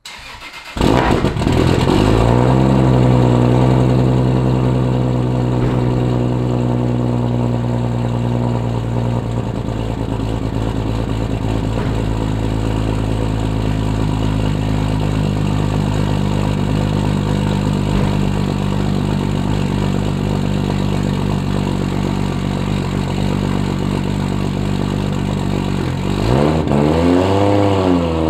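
Cold start of a Toyota Supra's 2JZ-GTE inline-six with GSC S2 cams and a Tomei titanium exhaust. The starter cranks briefly, and the engine catches under a second in and flares up to a high cold idle. It settles to a lower steady idle about nine seconds in, and the revs rise and fall a few times near the end.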